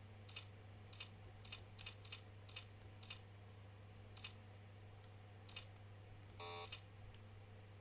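Faint, irregular taps on computer keyboard keys, about ten in all, over a steady low electrical hum. A short buzzy electronic beep sounds about six and a half seconds in.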